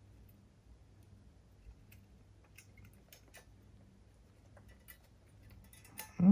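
Faint, scattered clicks and ticks of tools and small parts being handled while the cassette deck's tape transport is put back together, over a low hum, with one louder knock just before the end.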